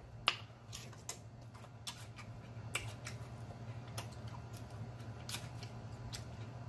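Close-miked chewing of crunchy food: irregular sharp crunches and mouth clicks, several a second, over a low steady hum.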